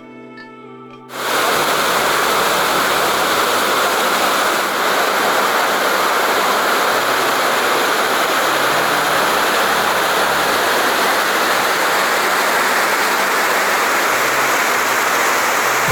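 Waterfall rushing in a loud, steady roar of falling water. It cuts in abruptly about a second in, ending a brief stretch of organ-like music.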